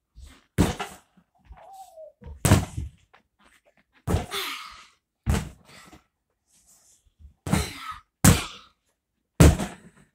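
A red freestanding punching bag taking repeated punches and kicks: about seven dull thumps, unevenly spaced and each dying away quickly.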